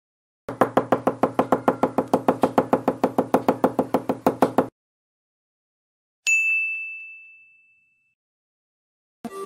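Editing sound effects: a rapid run of pitched pulses, about nine a second, for about four seconds, then after a pause a single bell-like ding that rings out and fades over nearly two seconds. Electronic music starts just before the end.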